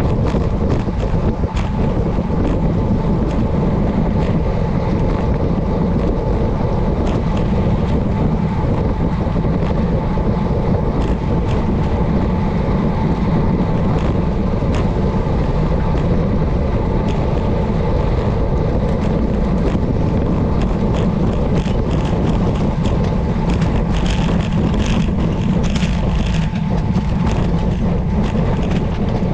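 Wind buffeting the microphone of a bike-mounted camera, with tyre noise from a road bike riding at speed over rough, cracked pavement. Frequent small knocks and rattles come from the bumps, more of them near the end.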